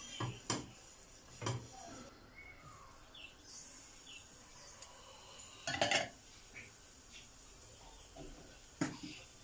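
A few separate clinks and knocks of a kitchen utensil against a frying pan, the loudest about six seconds in.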